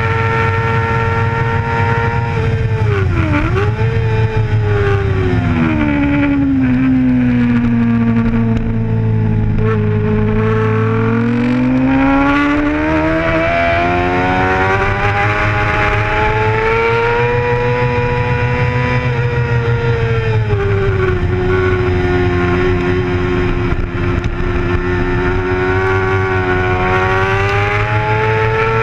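Racing sport bike's engine heard from an onboard camera at full race pace, its pitch dropping sharply a few seconds in, staying low through a corner, then climbing back up and holding high, with a shorter dip near the end.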